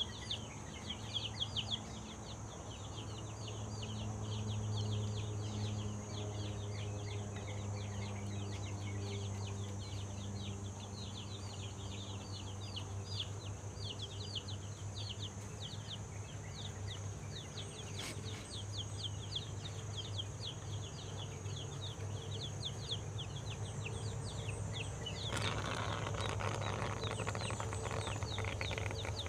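Many chicks peeping in quick, continuous high chirps over a steady low hum. A rushing noise joins about 25 seconds in.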